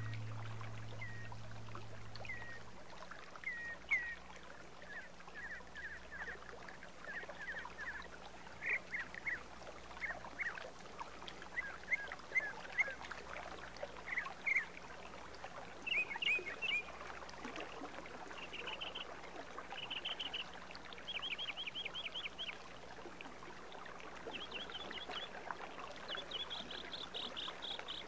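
Mountain stream running steadily, with birds chirping over it; the calls become more frequent and trilling toward the end. A low sustained note from the music fades out in the first couple of seconds.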